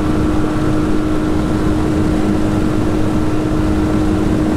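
Yamaha 9.9 outboard motor running steadily at speed, pushing a jon boat: a constant engine tone with no change in pitch.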